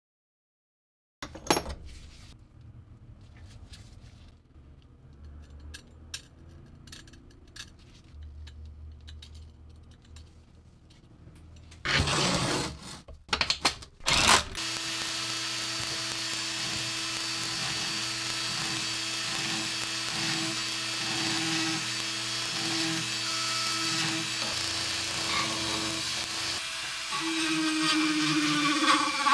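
Rotary sanding drum, driven through a shaft by a cordless drill, running steadily on the rusty steel blade of a Civil War bayonet, sanding off the rust; its pitch dips and it gets a little louder near the end. Before it starts there are soft handling clicks and a short burst of the motor.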